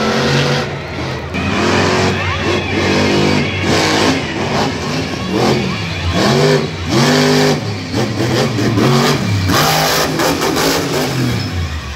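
Monster truck engine revving hard in repeated throttle bursts, its pitch climbing and dropping every second or so. There is a burst of harsh noise about ten seconds in.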